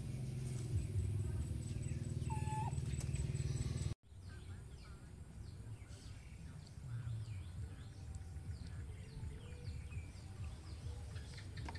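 Birds chirping in the background: many short, quick calls. A low steady rumble in the first few seconds cuts off abruptly about four seconds in.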